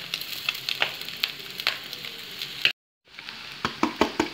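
Chicken, cabbage and carrot sizzling in a kadai as cooked rice is tipped in from a steel colander, with scattered sharp clicks and taps, thicker near the end. The sound drops out briefly a little before three seconds in.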